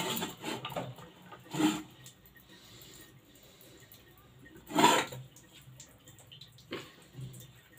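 Handling noises as wet potato slices are gathered up by hand: a few separate brief knocks and rustles over a quiet background, the loudest about five seconds in.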